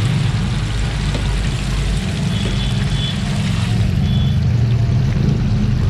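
Battered chicken deep-frying in a stainless steel fryer, the hot oil bubbling and sizzling steadily around the pieces, over a steady low hum.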